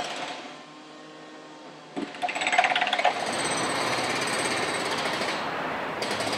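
A power hammering tool, like a jackhammer, hammering rapidly and steadily, starting about two seconds in.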